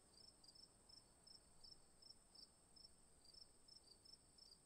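Near silence with faint insects chirping: short high chirps repeating about three or four times a second over a steady high trill, typical of crickets.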